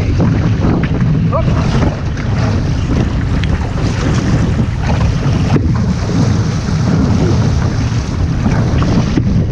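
Wind buffeting the microphone over water rushing and splashing along the hull of a one-person outrigger canoe paddled through rough ocean chop.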